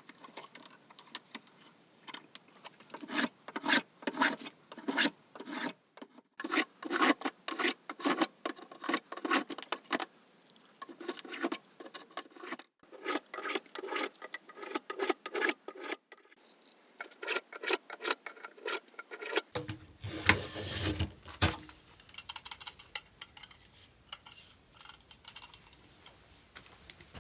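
Repeated back-and-forth rubbing strokes of hand abrasive work, filing or sanding on an old planishing hammer under restoration, about two strokes a second in short bursts. Near the end the strokes grow fainter and a brief low rumble comes in.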